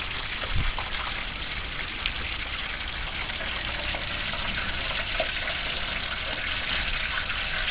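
Hot oil in a turkey fryer pot bubbling and sizzling steadily as a whole fried turkey is lifted out of it, growing a little louder toward the end.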